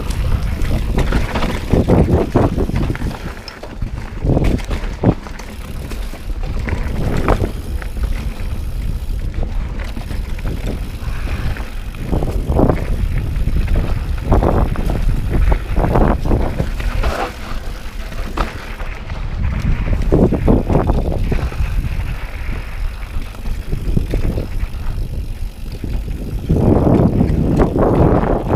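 Mountain bike riding over dirt singletrack: tyres rumbling over dirt, roots and rocks, with frequent sharp knocks and rattles from the bike over bumps and wind buffeting the microphone.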